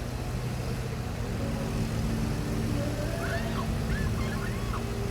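Diesel engine of heavy earthmoving equipment running steadily with a constant low hum. A few short bird chirps come in about three seconds in.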